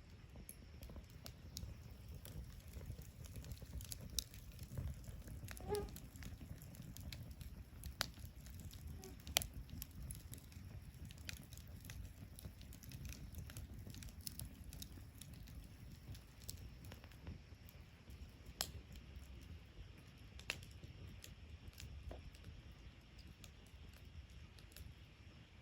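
Wood fire crackling, with irregular sharp pops and snaps over a low, steady rumble.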